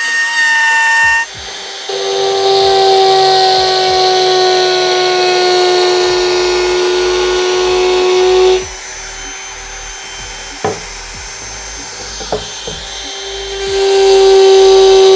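CAZAR CZ-TVS036 wood trimmer/router running at a steady pitch while its bit trims 2 mm edge-banding tape flush along a round board's edge, with a cutting hiss over the motor hum. About halfway through it turns quieter for several seconds, with a few light knocks, and the full cutting sound comes back near the end.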